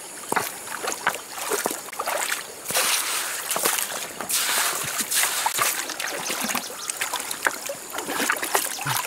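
Shallow stream water splashing and sloshing as hands stir it and stones are shifted, with scattered small knocks and clicks and a few louder splashing stretches.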